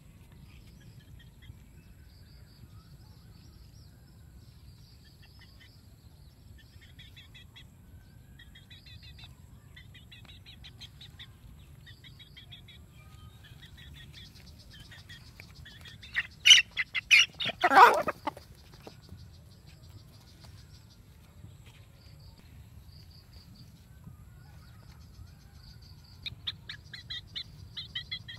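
Chickens calling: a young chicken peeping in short, high, repeated chirps, with a brief burst of loud squawks a little past the middle.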